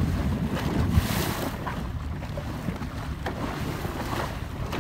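Wind buffeting the microphone over the wash of open-sea water along the side of a moving boat.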